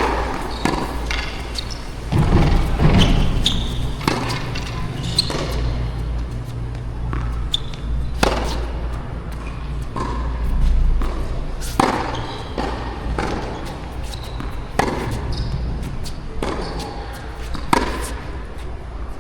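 Tennis ball being hit and bouncing during a rally, sharp pops coming every second or two. Wind buffets the microphone with a steady low rumble underneath.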